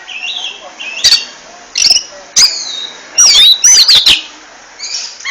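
Oriental magpie-robin (kacer) singing: a fast, varied run of loud whistled notes that glide up and down, mixed with sharp clicking notes, busiest a few seconds in.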